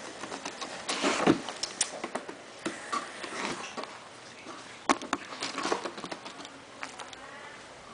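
Rabbit gnawing and tearing at a cardboard box: irregular crunching, scraping and clicking of teeth on cardboard, in uneven bursts.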